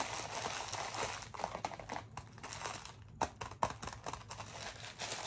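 Plastic mailer bag crinkling and rustling as it is handled and worked open by hand, with a few sharp crackles about three seconds in.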